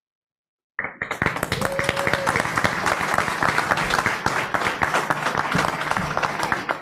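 After a brief dead silence, an audience breaks into steady applause about a second in, many hands clapping at once.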